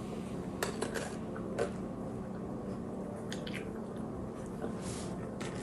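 A child quietly biting and chewing a crunchy snack, with a few short, soft crunches and crackles.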